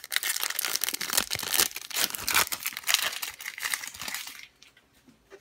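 Foil Pokémon TCG booster pack wrapper crinkling and tearing as it is opened by hand, stopping about four seconds in.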